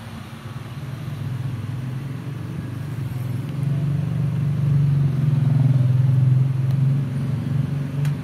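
Low engine rumble of a motor vehicle going by, building up to its loudest about five to six seconds in and then easing off.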